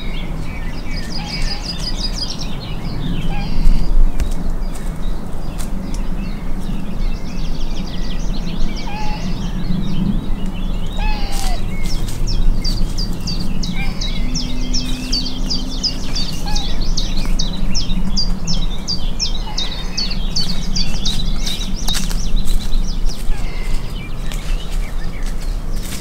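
Birds singing and chirping in a woodland chorus over a steady low rumble, with a few faint, short, high calls from a roe doe calling her fawns. A low thump sounds about four seconds in.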